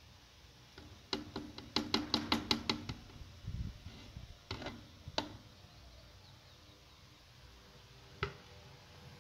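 Blender jar knocked against the rim of a saucepan to shake out thick cream sauce: a quick run of sharp knocks, about six a second for two seconds, then a few single knocks.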